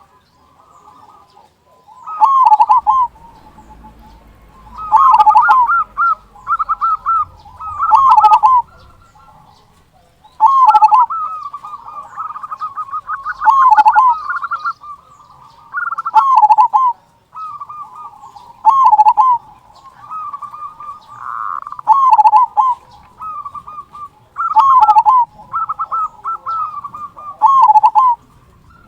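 Male zebra dove (perkutut) cooing: repeated phrases of quick staccato notes, each ending in a loud 'kung', about every three seconds, with softer trilling notes between them.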